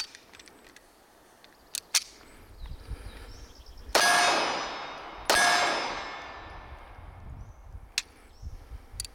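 Two shots from a Walther PPK/S .380 pistol about a second and a half apart, each followed by a long metallic ring that fades slowly, typical of a hit on a steel target. A few light clicks of the pistol being handled come before and after.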